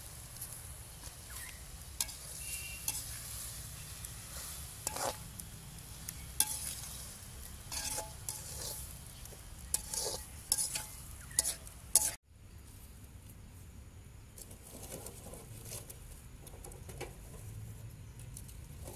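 Metal ladle stirring mushrooms in an aluminium pot, with repeated sharp clinks and scrapes against the pot over a light sizzle of frying. About twelve seconds in the clinking stops abruptly, leaving a quieter, even hiss.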